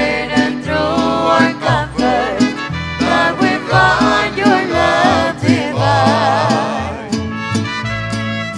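Church music for the offertory: a singer with a wide vibrato over instrumental accompaniment with a bass line and a steady beat. The voice stops about seven seconds in and the instruments carry on.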